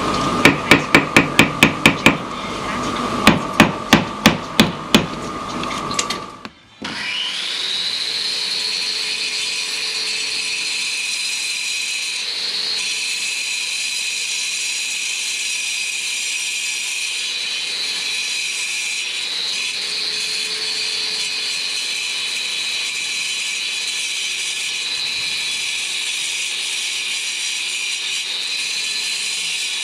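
Hammer striking rapidly, about five blows a second, in two quick runs. After a sudden cut, a machine runs steadily with a high whine.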